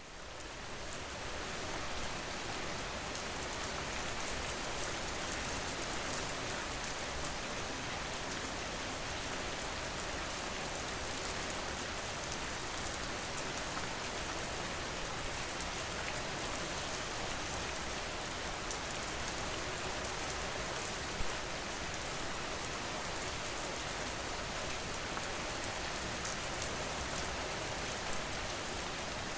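Steady rain falling, a dense even patter of drops on a surface that fades in over the first couple of seconds.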